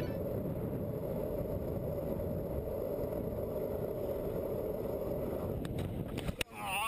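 Longboard wheels rolling steadily over asphalt, then a crash about six seconds in: a few sharp knocks and scrapes as the board and rider go down, followed by a short cry near the end.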